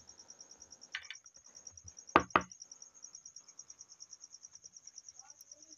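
Small plastic paint jars being handled and set down on paper over a table: a soft knock about a second in, then two sharp clicks in quick succession a little after two seconds. A cricket chirps steadily and high in the background.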